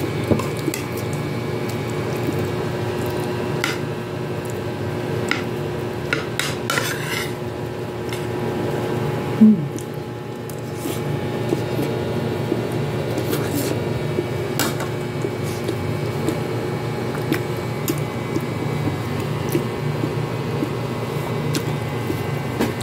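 A metal spoon clinking and scraping on a plate of rice, in scattered short clicks over a steady background hum, with one brief louder bump about nine seconds in.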